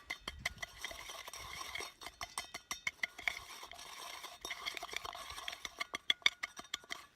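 Whole cumin seeds being ground with a rock inside a stainless steel insulated cooler tube used as a makeshift mortar and pestle: rapid clinking and scraping strikes with a metallic ring. It stops abruptly just before the end.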